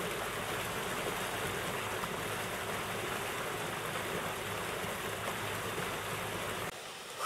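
Water rushing steadily into a canal lock chamber as the lock fills. The sound cuts off suddenly near the end.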